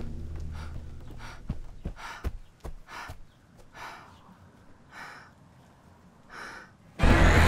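A woman panting hard after running, with breathy gasps that come further apart as she catches her breath. A few footsteps sound as she stops, and a low drone fades out in the first couple of seconds. A sudden loud sound cuts in near the end.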